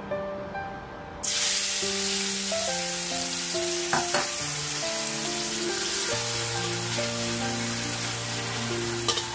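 Chopped shallots, garlic and red chilies frying in hot oil in a steel wok. A loud, steady sizzle starts suddenly about a second in, and a metal spatula stirring them clicks against the wok a few times.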